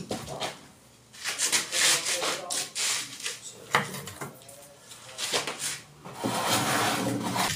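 Scraping and rubbing of a ceramic wall tile being pressed and slid into place on tile adhesive, in two longer spells with a few short scrapes between.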